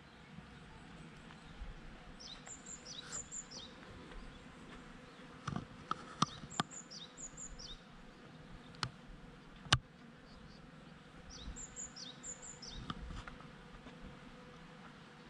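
Bees buzzing around blossoms as a faint steady hum. A small bird sings short phrases of high, falling chirps three times, and a few sharp clicks stand out, the loudest near the middle.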